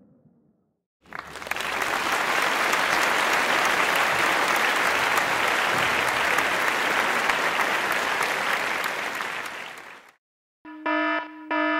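A crowd applauding, swelling in about a second in and fading out after about nine seconds. Near the end, a pulsing electronic alarm buzzer starts beeping.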